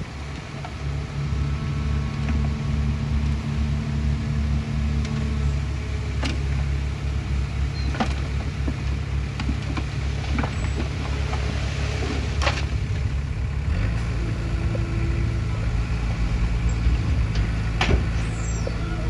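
Diesel engines of a dump truck and a small bulldozer running steadily as the truck raises its bed to tip its load of soil; the engine note shifts about fourteen seconds in. Several sharp knocks stand out over the engines.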